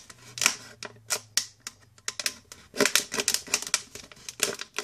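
Thin plastic bottle crackling in quick, irregular clicks as a utility knife saws through its wall to cut off the bottom; the blade is dull and due for replacement.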